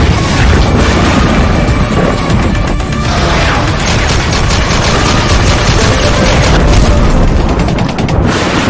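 Sound-effect intro: heavy booms and rapid machine-gun fire over music, a dense run of shots through the middle.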